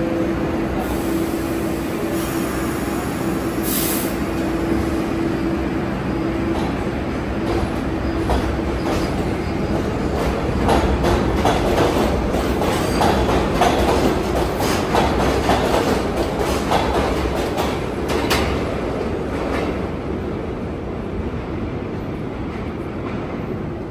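New York City subway train moving through the IRT 7th Avenue line station. A steady whine fades out about six seconds in, with a short hiss about four seconds in. Then come the wheels' rapid clacks, loudest in the middle and easing off toward the end.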